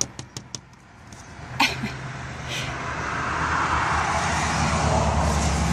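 A few light taps and rustles of mail at a door's mail slot in the first second or two, then a motor vehicle's engine and road noise growing steadily louder, as if approaching.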